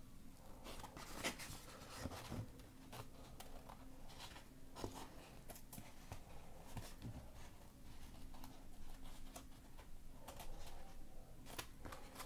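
Faint rustling, scraping and scattered light clicks of a sheet of EVA foam being handled by hand while a glitter EVA trim strip is pressed along its edge.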